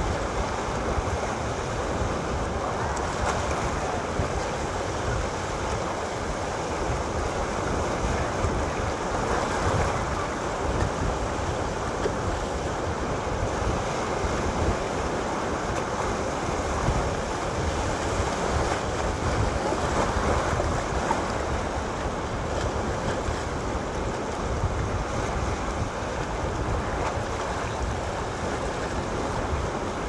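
Sea waves breaking against rocks and washing over a rocky shore, a steady surf wash with no single break standing out.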